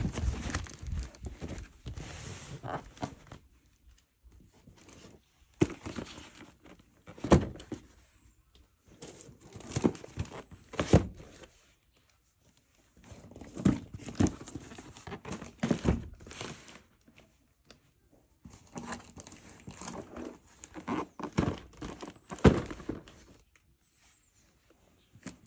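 Cardboard shipping boxes being handled: scraping and rustling of cardboard with sharp knocks as the boxes are shifted and set down. It comes in bursts with short pauses between.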